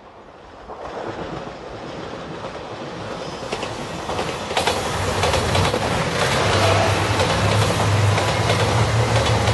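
JR Shikoku 2700 series diesel express train approaching and passing close by, growing steadily louder. About halfway through, the low drone of its diesel engines and rapid clicking of the wheels over rail joints take over.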